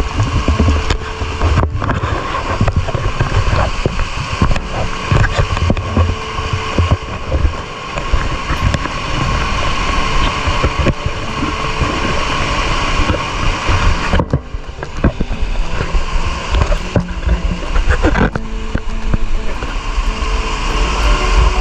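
Loud, steady rush of white water pouring down a spring-fed cascade, heard from right inside the falling water and spray.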